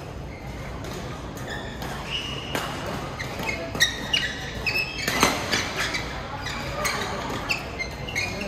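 Badminton doubles rally: rackets smacking the shuttlecock, the sharp hits starting about four seconds in and coming every second or so, with short high shoe squeaks on the court mat between them, in a large echoing sports hall.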